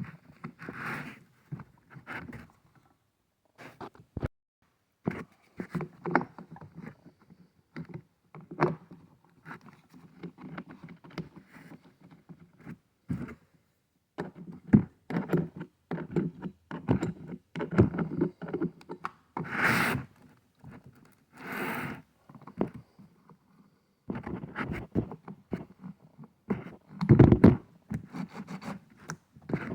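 Echo 2511T chainsaw's clutch cover being worked back into place by hand: irregular scrapes, clicks and knocks of plastic and metal parts, with two short hissing bursts a couple of seconds apart about two-thirds of the way through.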